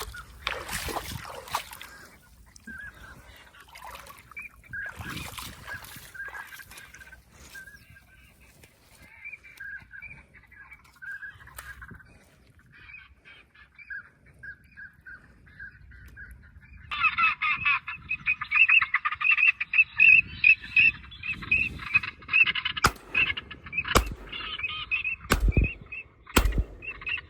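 Ducks calling: faint, broken quacking at first, turning suddenly into loud, rapid, dense quacking a little past halfway. Near the end, four sharp bangs cut through the calling.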